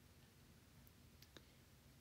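Near silence: room tone, with a few faint clicks in the second second.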